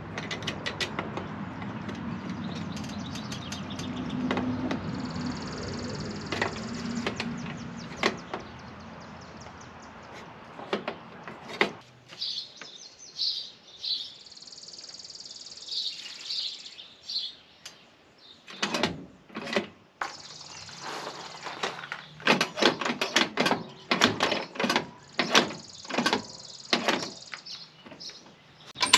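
Sharp metallic clicks and clanks from hand work on a boat trailer's winch stand and bow latch, coming thick and fast in the second half. High chirping comes and goes in the background.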